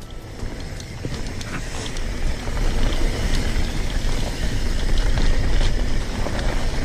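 A mountain bike rolls fast down a dirt singletrack, with wind rushing over the camera microphone in a deep rumble, tyre noise on the packed dirt, and faint ticks and rattles from the bike.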